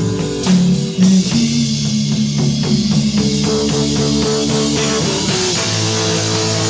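Live rock band playing: electric guitar, bass and drums, with two heavy drum hits about half a second and a second in, then a steady beat. It is a hissy tape recording.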